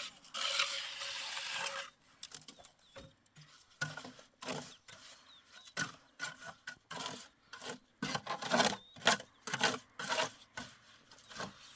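Hand-worked scraping and rasping on a rough surface. One long scrape lasts about two seconds, then comes a run of short, irregular strokes, loudest near the end.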